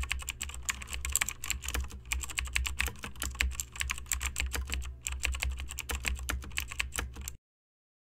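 Fast computer-keyboard typing, a rapid irregular run of key clicks over a low steady hum, stopping abruptly about seven seconds in.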